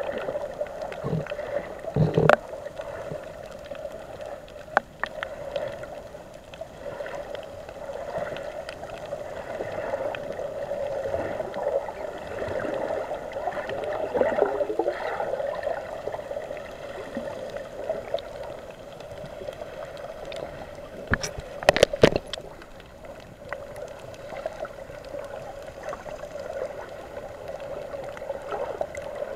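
Muffled underwater rush and gurgle heard through a submerged camera moving over the reef, with a few sharp knocks: one a couple of seconds in and a short cluster about three-quarters of the way through.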